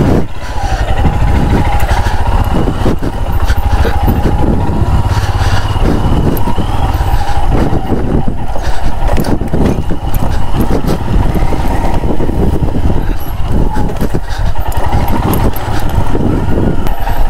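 Royal Enfield Himalayan motorcycle riding, its single-cylinder engine running continuously with a heavy low rumble that rises and falls.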